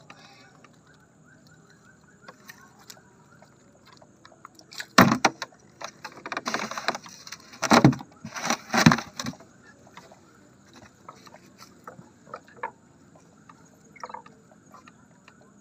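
A gill net being hauled in over the side of a boat and fish worked out of the mesh: soft rustles and small knocks, then about five seconds in a run of four loud splashing, sloshing bursts over some four seconds.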